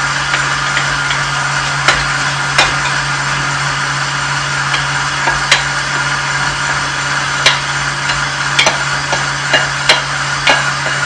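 Stand mixer's meat-grinder attachment running steadily under load, its motor humming as poultry and vegetable mince is fed through a second time. Scattered sharp knocks come from the pusher tapping the feed tube.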